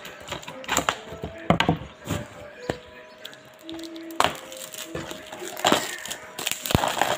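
Handling noise of a plastic DVD case and the handheld camera: irregular clicks, knocks and rustles, a dozen or so sharp ones scattered through.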